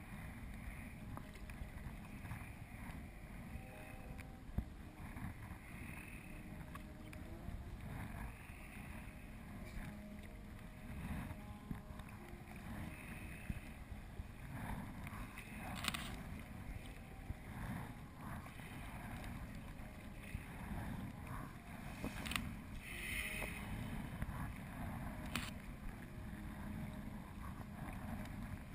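Sea kayak being paddled through light chop: paddle blades dipping and the water sloshing against the hull, over a low rumble of wind on the microphone. A few short, sharp sounds stand out in the second half.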